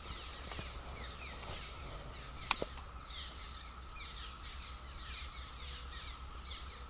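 A colony of swallows nesting under a bridge, chattering in many quick, short falling chirps. A single sharp click about two and a half seconds in.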